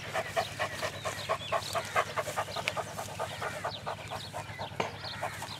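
A large Pakistani bully kutta panting rapidly and steadily through an open mouth, in hot weather.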